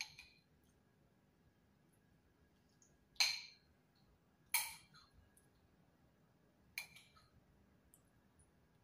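Spoon and fork clinking against a bowl as food is scooped: four short clinks spread a second or two apart, the two loudest near the middle.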